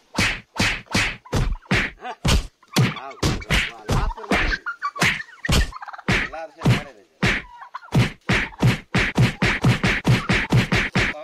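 Turkeys fighting: a rapid run of sharp thwacking blows, a few a second, coming faster toward the end.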